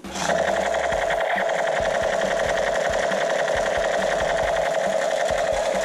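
Electronic toy gun's rapid-fire sound effect through its small speaker: a continuous buzzing rattle that starts abruptly just after the start and holds steady.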